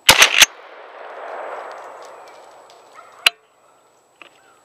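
A single hunting gunshot at the very start, sharp and very loud, followed by its echo swelling and fading through the woods over about two seconds. A lone sharp click comes about three seconds later.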